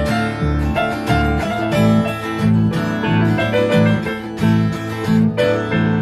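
Instrumental passage of a small band with no singing: strummed acoustic guitar over a rhythmic electric bass line, with keyboard.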